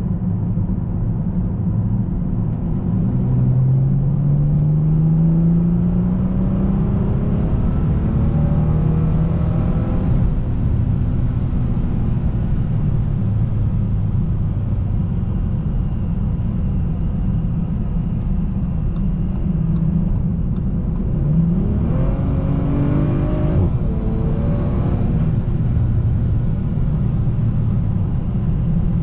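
Engine and road noise inside the cabin of a 2019 Bentley Continental GT at motorway speed. The engine note climbs steadily as the car accelerates and falls back about ten seconds in, then climbs sharply again a little past two-thirds of the way and falls back once more. A brief run of light ticks comes shortly before that second climb.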